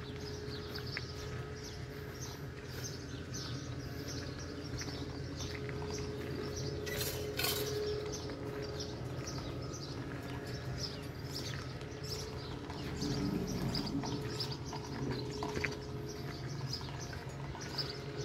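Many small birds chirping over the low, steady hum of a Nissan pickup truck's engine running as the truck creeps forward.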